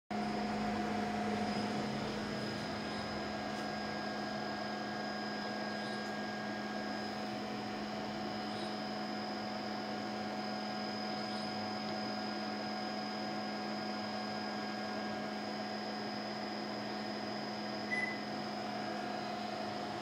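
Steady electrical hum with a faint high whine. Near the end a single short high beep, the Panasonic split air conditioner's indoor unit acknowledging the remote as it is switched on.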